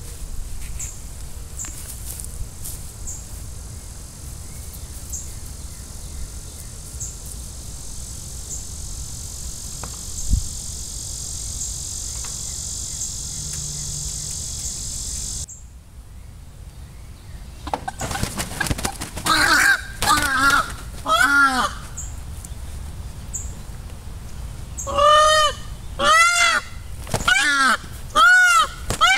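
Peafowl calling: from about two-thirds of the way in comes a rapid series of loud, honking calls, each rising and falling in pitch, about one a second near the end, in the commotion of a peacock attack. Before that there is only a steady high hiss with faint regular ticks.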